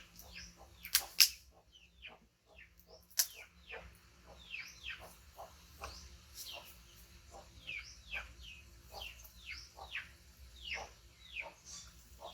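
Repeated short, high-pitched chirps that fall in pitch, coming irregularly every fraction of a second, from a small animal or young bird. A few sharp clicks stand out about a second in and again around three seconds in.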